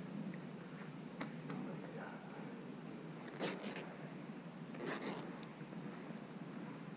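Wet cloth bag being pulled and worked open by gloved hands: a sharp click just over a second in, then two short, scratchy rustles of fabric about a second and a half apart.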